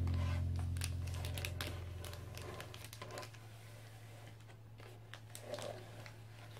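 Faint crinkling of a clear plastic bag and small plastic taps and clicks as a PVC figure is handled and fitted onto its display stand. Background music fades out in the first couple of seconds.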